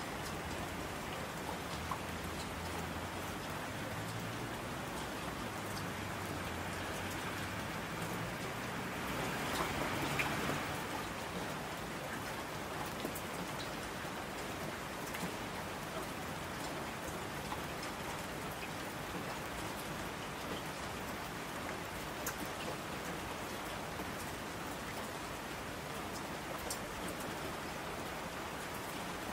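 Steady rain falling, with scattered single drop ticks and a brief swell in intensity about ten seconds in.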